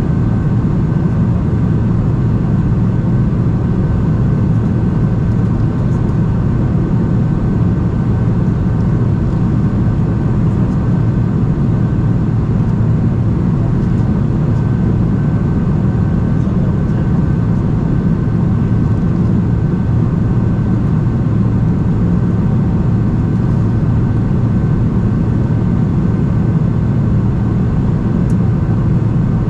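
Steady cabin noise inside a Boeing 747-400 in flight: a loud, even low rumble of engines and rushing air, with a thin steady high tone running through it.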